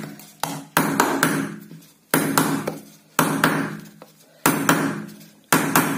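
Steel pliers knocking on the plastic body of an LED bulb at the edge of its diffuser dome: about six light taps, roughly a second apart, each ringing briefly. The taps are meant to knock the dome loose without cracking the housing.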